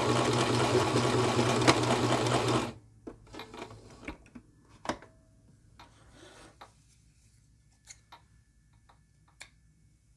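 Electric sewing machine stitching a seam at a steady run, stopping suddenly about three seconds in. A few faint clicks and handling sounds follow as the fabric is drawn out from under the presser foot.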